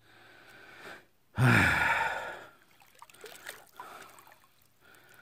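A man's heavy sighing exhale, about a second and a half in, then faint water sounds.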